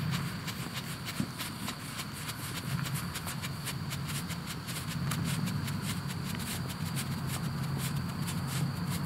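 Ground firework burning with a dense, irregular crackle of sharp pops that thickens over the second half, over a steady low rumble.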